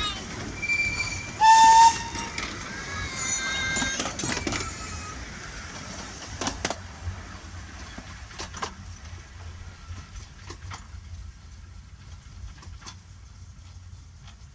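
Miniature steam train passing: a short, loud whistle about a second and a half in, over children's shouts, then the wheels clicking over the rail joints, fading as the train pulls away.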